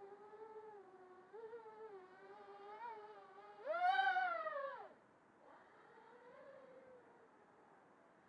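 Small racing quadcopter's brushless motors and propellers whining in flight, the pitch wavering up and down with the throttle. About four seconds in, a sharp throttle punch makes it louder and higher for about a second before the pitch drops away and the sound goes quieter.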